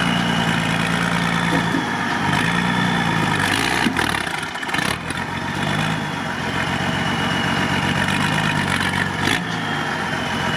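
Mercedes-Benz Unimog truck engine running near idle, its pitch rising and falling a few times as the throttle is blipped, with a few short knocks.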